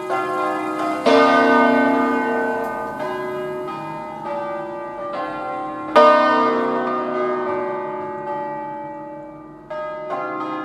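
Full swing-ringing of an eight-bell church peal in B-flat, bronze bells cast by Mazzola of Valduggia in 1882, swinging through to mouth-up. The clappers strike at uneven intervals, the strokes overlapping in long ringing decays, with the loudest stroke about six seconds in.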